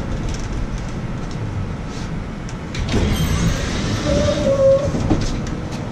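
City street noise dominated by a low vehicle rumble, which grows louder about halfway through, with a brief steady tone shortly after.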